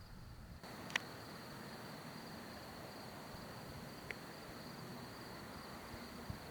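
Crickets trilling steadily in one continuous high note over a faint hiss, with two brief sharp clicks about a second in and about four seconds in.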